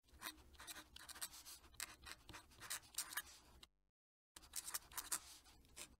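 Fountain pen nib scratching across paper in quick, faint strokes as it writes cursive script, breaking off for about half a second a little before the four-second mark, then writing on.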